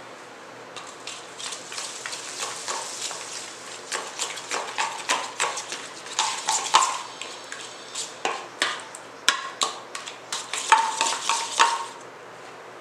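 A spoon stirring a thick yogurt-and-spice marinade in a stainless steel bowl, knocking and scraping against the metal in quick repeated strokes, several a second, the bowl ringing briefly after some strikes. The stirring starts about a second in and stops about a second before the end.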